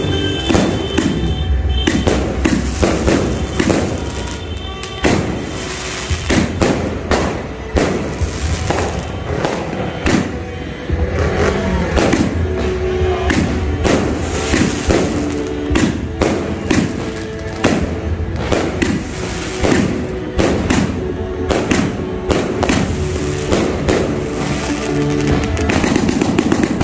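A 228-shot fireworks cake from Diamond Fireworks firing a rapid, irregular run of shots and aerial bursts, with background music underneath.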